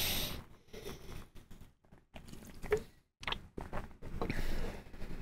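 A person drinking from a can close to the microphone: quiet sips and swallows with a few small mouth clicks, cutting in and out.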